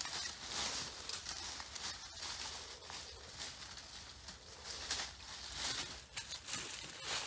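Rustling leaves and brush with small crackles and snaps of twigs as someone pushes through undergrowth carrying an armful of dry sticks, with footsteps on leaf litter.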